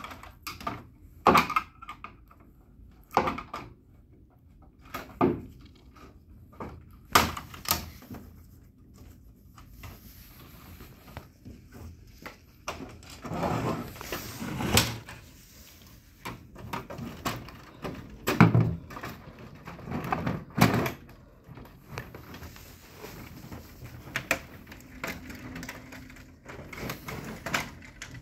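Plastic covers and body of an HP 4001 laser printer being handled and unclipped: irregular clicks, snaps and knocks every few seconds, with a few duller thuds as the printer is shifted on the bench, the loudest about two-thirds of the way in.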